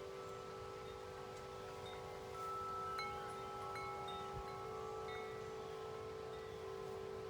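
Wind chimes ringing in the wind, a few long low tones sustaining while higher tubes are struck now and then, over a faint rush of wind.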